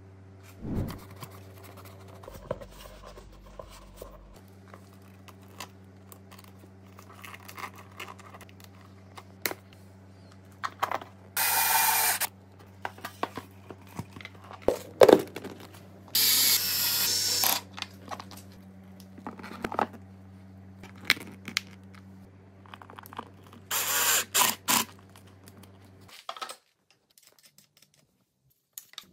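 Workshop handling sounds of motorcycle parts and hand tools: scattered clicks and scrapes, with three loud bursts of rushing noise, each one to two seconds long. A steady low hum runs underneath and cuts off near the end.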